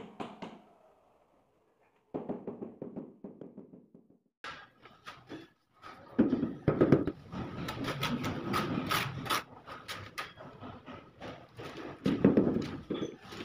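Repeated irregular knocks of a mallet tapping a large ceramic wall tile to bed it into fresh mortar. The knocks come in quick runs, loudest and densest from about halfway through.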